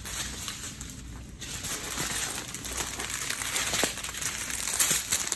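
Small plastic bags of diamond painting drills crinkling and rustling as a handful is pushed across a surface and sorted by hand, with many small crackles. The crinkling gets busier about a second and a half in.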